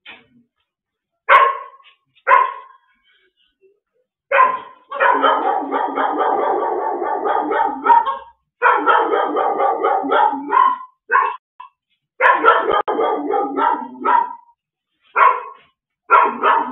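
A dog barking and yelping: a few single barks at first, then rapid, unbroken runs of yelps lasting a few seconds each with short pauses between, the cries of a dog being seized.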